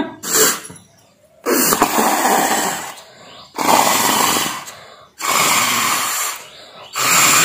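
Breath blown through a drinking straw into a sheet of shampoo slime to inflate a bubble: a short puff, then four longer hissing blows of about a second each, with brief pauses between.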